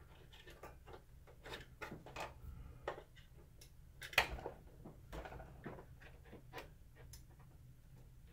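Small screwdriver poking and scraping at the lamp-cover interlock switch slot in a Mitsubishi WD720 projector's plastic housing: scattered light plastic clicks and taps, with one louder click about four seconds in, while the switch is checked for jamming.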